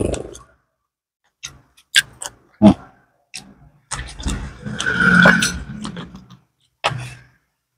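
Close-up eating sounds of a person eating fried gourami with the fingers: a few short, sharp mouth clicks and smacks, then a longer, louder stretch of chewing and mouth noise from about four to six and a half seconds in, and one more smack near the end.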